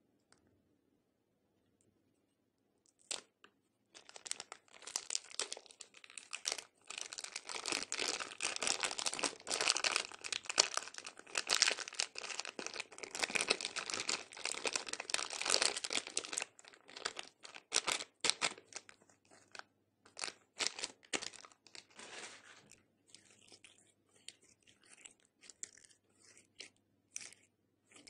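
Clear plastic piping bag crinkling and tearing as it is peeled off orange slime: a dense crinkly rustle starting about four seconds in, loudest in the middle, then thinning into scattered crackles near the end.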